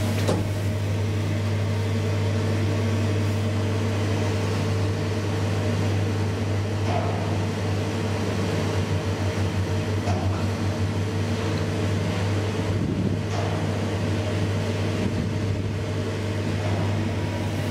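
Steady low hum and running noise of a 2013 SMW traction elevator car travelling up its shaft.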